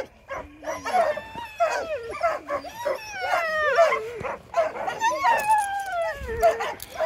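Harnessed sled dogs whining and yelping in repeated, falling cries, several voices overlapping, eager to run while they are held at the start.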